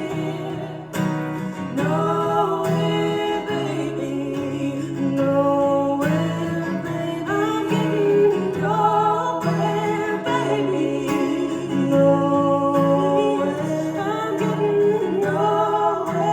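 Live acoustic folk music: plucked acoustic guitar with singing, a steady repeating bass figure underneath.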